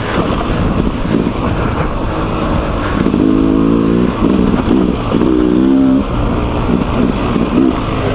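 Two-stroke dirt bike engine revving in surges under throttle, its pitch climbing twice near the middle and easing off between, over a steady low rumble.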